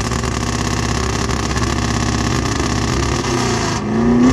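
A car engine with a full Borla exhaust and long-tube headers, held on an MSD two-step launch limiter at about 4,000 rpm. It gives a rapid, loud stutter of exhaust pops that stops almost four seconds in.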